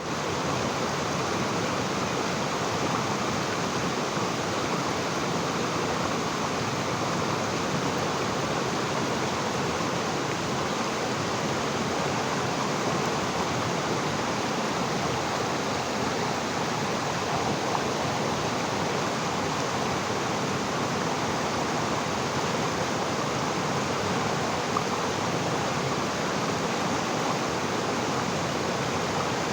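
Heen Ganga river water flowing and rushing over rocks, a steady, even rush.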